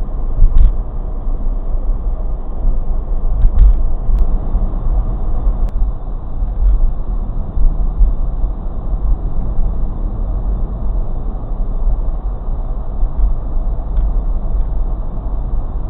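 Steady road and engine rumble inside a moving car's cabin, picked up by a dash cam's microphone, with a couple of faint clicks near the start.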